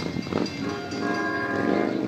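An approaching NJ Transit train's horn sounds a held chord of several steady tones, starting about half a second in and stopping near the end, over a fast, regular ringing.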